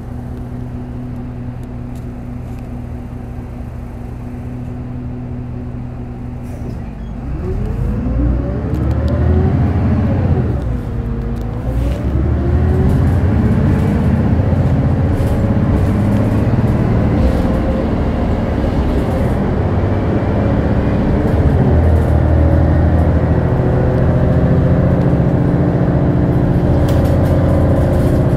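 Mitsubishi Fuso LKG-MP37FKF city bus's six-cylinder turbo-diesel idling steadily for about seven seconds, then pulling away. The engine note climbs, dips once with a gear change, climbs again, and settles into steady running.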